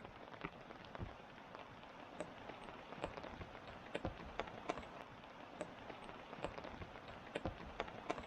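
Light rain: separate drops ticking irregularly, a few a second, over a steady hiss.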